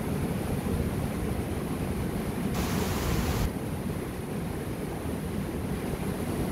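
Steady rush of a monsoon-swollen mountain river, deepest in the low end, with a brief louder hiss lasting about a second roughly three seconds in.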